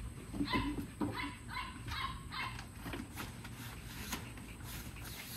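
American bully dog whining in short, high yips, about three a second, which stop a couple of seconds in, leaving faint clicks.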